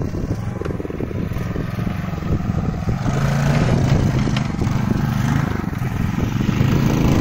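A mini bike's 10 hp Tecumseh HM100 single-cylinder four-stroke engine running under throttle as the bike rides over rough ground, growing louder as it comes closer.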